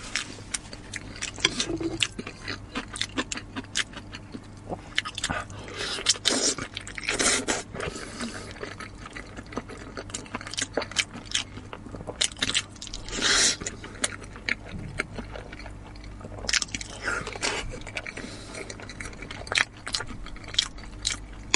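Eating sounds from chewing and biting braised pig snout: a string of sharp clicks and smacks, with a few longer, louder sounds about six to seven seconds in and again about thirteen seconds in.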